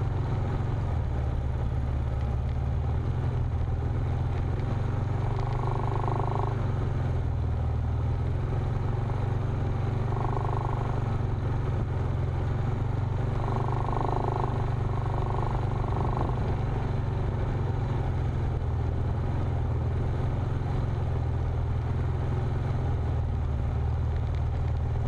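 Off-road vehicle engine and drivetrain running steadily at low trail speed, a low continuous drone that shifts a little in pitch now and then.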